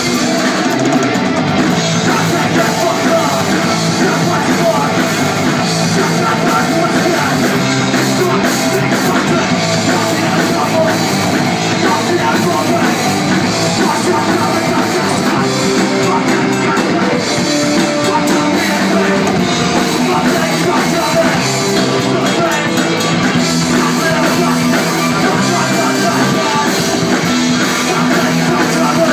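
Hardcore punk band playing live: a loud, unbroken wall of guitar and drum kit, with vocals in the mix.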